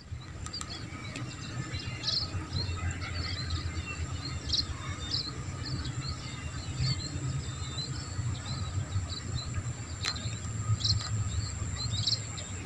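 Small birds chirping in short, scattered calls over a steady high insect drone, with a low rumble underneath. There is one sharp click about ten seconds in.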